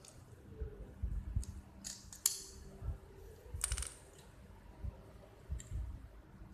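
Small metal plates of a Tasco fogging machine's diaphragm (membrane) assembly clinking lightly as they are handled and fitted together by hand, with a few sharp metallic clicks, the loudest about two seconds in and another near four seconds, over soft handling bumps.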